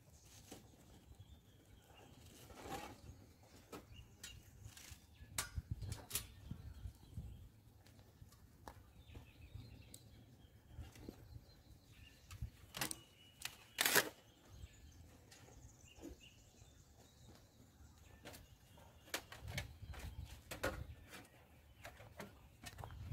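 Scattered light knocks and clicks of objects being handled, the sharpest about 14 seconds in, over a faint low rumble.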